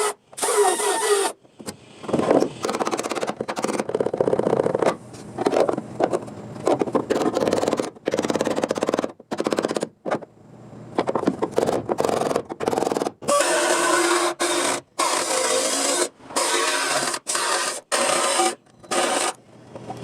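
Abrasive work on the car's sheet-steel body: rasping, scraping strokes repeated over and over, each starting and stopping abruptly.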